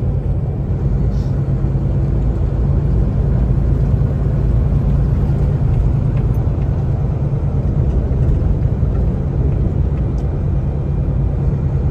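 Kenworth T680 semi truck cruising at highway speed, heard from inside the cab: a steady low drone of engine and tyre-on-road noise.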